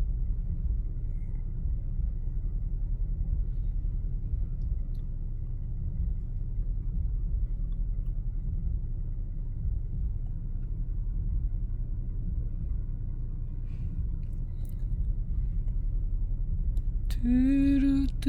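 Low, steady rumble of a car idling, heard from inside the cabin. Near the end a loud, held pitched sound starts over it.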